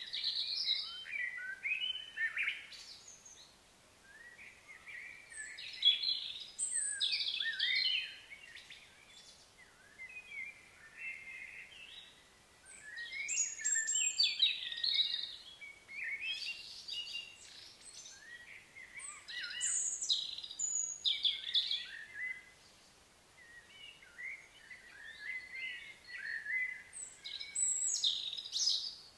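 Wild songbirds singing: bouts of quick chirping, warbling phrases every few seconds, with short quieter gaps between them.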